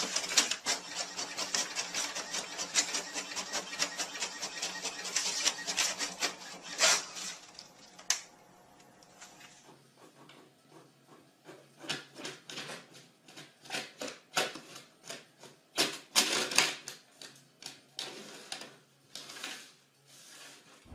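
Inkjet printers running: rapid mechanical clicking and whirring from the print head and paper feed. The sound is dense and continuous for about the first eight seconds, then breaks into separate short runs of clicks.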